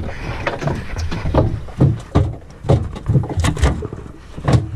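Irregular dull thumps and knocks on a fibreglass boat deck, about two a second, with a louder knock near the end.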